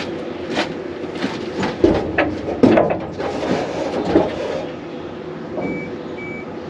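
Knocks and clatter of someone getting into a truck, then, from about five and a half seconds in, a truck's dashboard warning chime beeping about twice a second with the engine not yet running.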